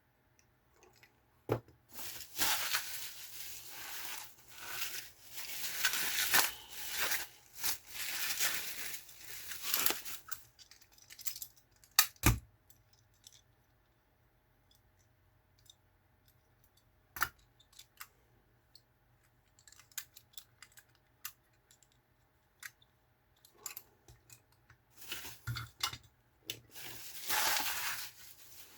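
Packaging being unwrapped by hand: paper or plastic crinkling and tearing in two long stretches, with scattered clicks and a few sharp knocks in between.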